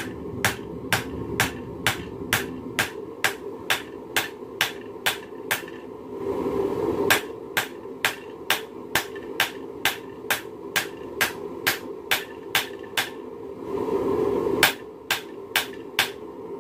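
Hand hammer striking a red-hot railroad spike on an anvil, forging it into a knife blade. The blows are steady, about two a second, with a short pause about six seconds in and another near the end, and a steady low rushing noise fills the pauses.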